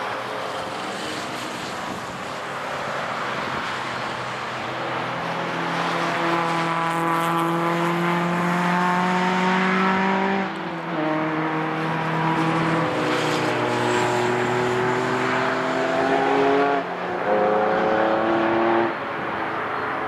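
Several historic racing cars' engines accelerating hard, overlapping one another, each rising in pitch and dropping sharply at gear changes, about ten seconds in and again near the end.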